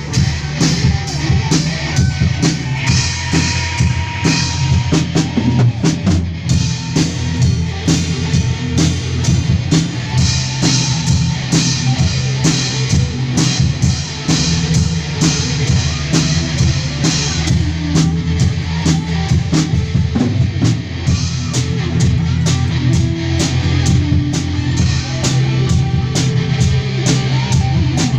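Rock music with a drum kit, bass and guitar playing, with frequent sharp drum and cymbal hits over a steady low bass.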